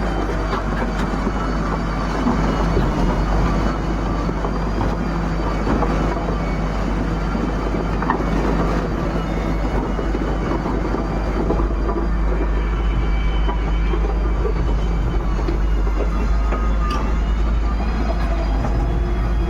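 Heavy machine's engine running steadily, with a deep constant rumble and a faint, wavering high whine above it.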